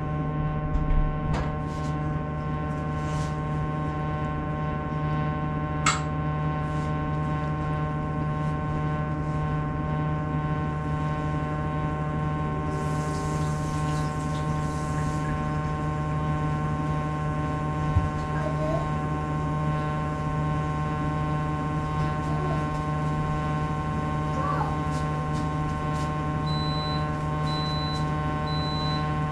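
Sharp AY-J40S-W air conditioner running with a steady hum made of several fixed tones, a low one strongest and thinner whining tones above it. This is the abnormal noise it has made since it was bought, still not cured after a repair of a frequency fault.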